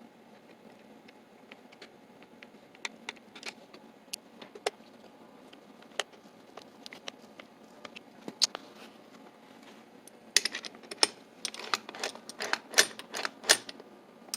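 Small metal clicks and taps of a Sargent 7800 mortise deadbolt lock body being handled, scattered at first, then a dense run of louder clicks and clacks in the last four seconds as the reassembled mechanism is worked.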